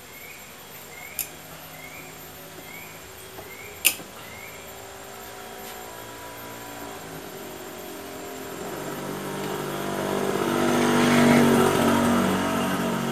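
A motorcycle passes by, its engine growing louder from about halfway through to a peak near the end and then starting to fade. Earlier, two sharp metallic clicks come from a screwdriver working on the brake fluid reservoir cover.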